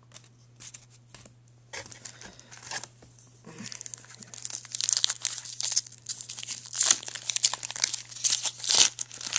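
Plastic trading card pack wrapper being crinkled and torn open by hand, mostly from about four seconds in, after a few faint handling clicks.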